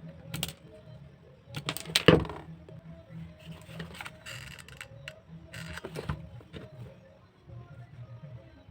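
Handling sounds of craft materials being worked: a few sharp taps and clicks, the loudest about two seconds in, and a short scraping hiss around four seconds, over faint background music.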